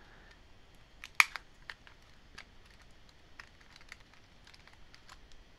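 Light plastic clicks and ticks from tweezers working a key's scissor mechanism on a white MacBook keyboard. A sharp click comes about a second in, then a dozen or so fainter ones at uneven intervals.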